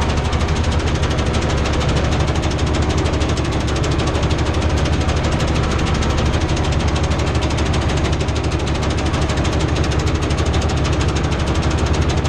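Farm tractor's diesel engine running steadily under way, heard from inside the cab, a continuous rapid clatter of firing pulses with a strong low drone.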